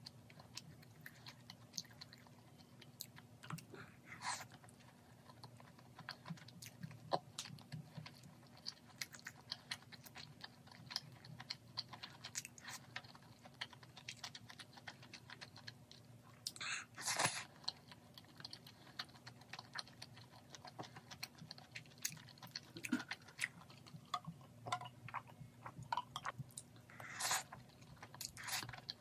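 Close-up chewing of spicy grilled beef intestines (makchang and gopchang) and seaweed rice balls: soft, wet mouth sounds and small smacks, with a few louder clicks and scrapes around the middle and near the end. A faint steady low hum runs underneath.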